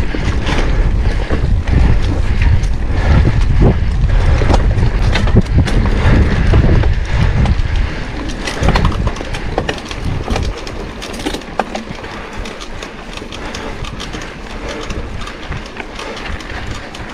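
Wind buffeting the microphone of a mountain bike riding at speed, with scattered clicks and rattles from the bike over rough ground. About eight seconds in the wind rumble drops and the clicks carry on quieter.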